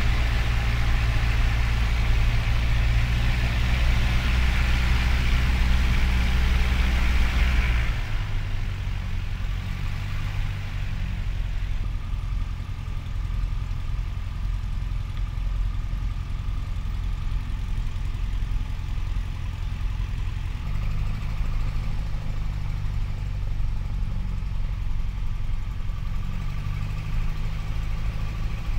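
Small single-engine piston airplane's engine and propeller running at low taxi power, heard from inside the cockpit as a steady low drone. It drops in level and pitch about eight seconds in and shifts again around twenty-one seconds.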